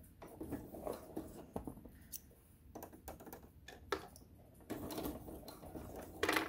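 Sewing machine stitching haltingly through thick layers of mask fabric, uneven clicks and knocks rather than a smooth run, busier in the second half; it is not stitching right at the new stitch width.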